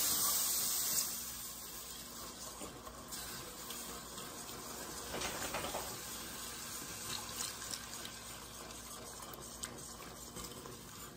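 Broth poured from a glass jar into a hot flour-and-butter roux in an enamelled cast-iron pot while a wire whisk stirs it. The hissing of liquid hitting the hot pan is loudest for about the first second, then the pouring and whisking go on more softly.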